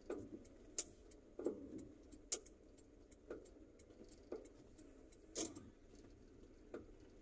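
Faint in-cabin noise of a car driving slowly, a low steady rumble with about eight irregular clicks and knocks from loose items rattling inside the car.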